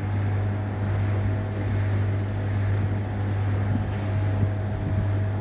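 A GAZelle van's engine running with a steady, even low hum.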